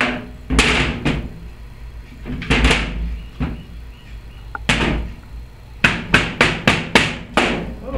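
Rubber mallet striking the sump cover of a Briggs & Stratton overhead-valve engine to knock it off the crankcase. A few spaced blows, then a quick run of about four blows a second near the end.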